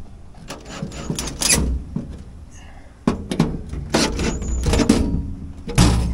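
Cordless drill driving screws into an aluminium drawer runner, among a run of sharp knocks and metal clatter.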